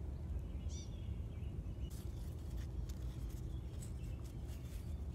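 Light crinkling and clicking of a small paper geocache log being folded and rolled up by hand, starting about two seconds in, over a steady low background rumble. A single bird chirp sounds about a second in.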